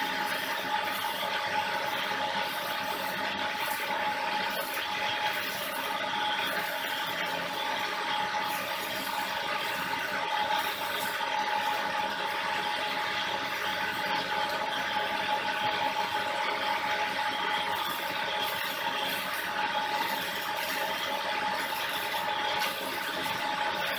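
An electric motor driving a gearbox and two belt-driven alternators runs steadily with a constant whine, while a stick-welding arc crackles at times.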